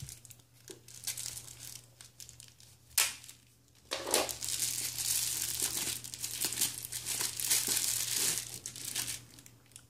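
Red plastic bubble wrap around a camera battery being handled and opened, crinkling. There is a sharp crack about three seconds in, then dense, steady crinkling from about four seconds until near the end.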